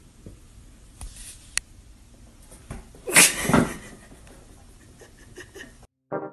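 A cat giving one short, loud cry about three seconds in, over faint rustling and a couple of light knocks.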